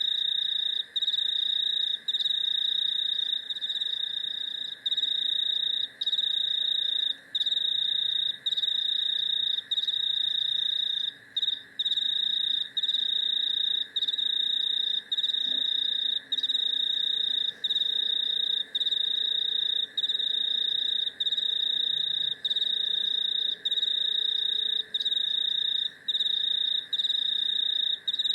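A cricket trilling on one high pitch, in long trills broken by brief pauses about once a second, over a steady lower drone of other night insects.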